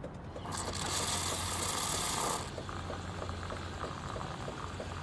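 Automatic espresso machine running its milk-system rinse: the pump hums steadily with a rapid even ticking, about three ticks a second, and a loud hiss of water forced through the milk tube sounds for about two seconds near the start.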